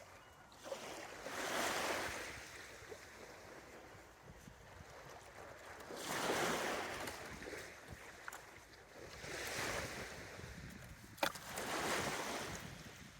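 Small waves breaking on a shallow, flat sand beach in calm conditions, the surf swelling and washing in about every three to four seconds. One sharp click near the end.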